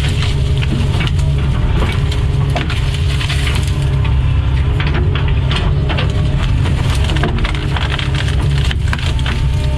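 Doosan DX140 excavator's diesel engine running steadily while wood crackles and splinters as the machine pulls down a fallen tree limb, with many irregular snaps throughout.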